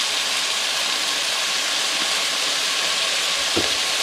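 Potato, onion, tomato and green chile frying in oil in a pot: a steady sizzle. A short light knock comes near the end.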